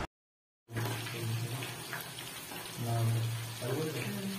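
Chicken pieces sizzling and crackling as they deep-fry in oil on a low flame, starting after a brief moment of silence. A low hum and a faint voice rise about three seconds in.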